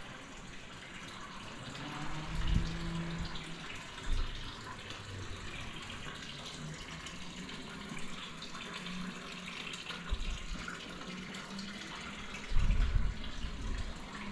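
Running water splashing steadily, with a few dull low bumps, the loudest near the end.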